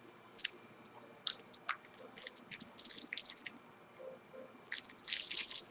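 Foil trading-card pack wrapper being torn open and crinkled, an irregular run of crackles that grows busier near the end.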